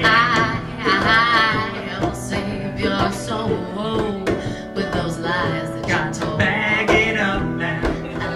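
Live acoustic band music: two acoustic guitars strummed with a hand drum keeping a steady beat, and a sung voice holding wavering notes near the start and again late on.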